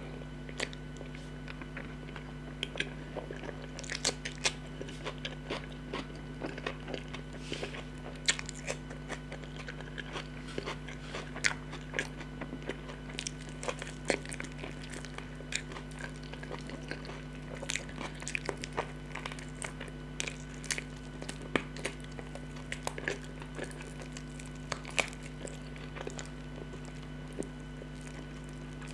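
Close-miked eating: someone gnawing and chewing chicken meat off the bone, a dense run of wet smacks and clicks of the lips and mouth. A steady low hum runs underneath.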